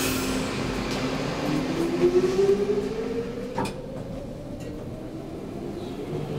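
Traction elevator running in its shaft, a 2012 SMW unit. A steady machine hum gives way to a whine that rises in pitch for about two seconds and then levels off, with a single click partway through.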